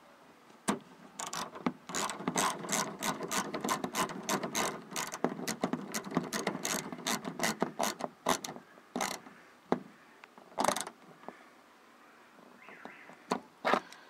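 Ratchet clicking as it turns the socket on the 8 mm bolt that holds a plastic inside door handle in the door: a fast, steady run of clicks for about eight seconds, then a few spaced clicks as the bolt is snugged down.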